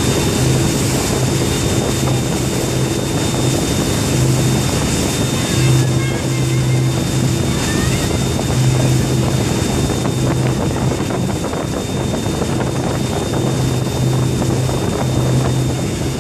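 Wake boat engine running with a low hum that swells and fades, under the steady rush of churning wake water and wind buffeting the microphone.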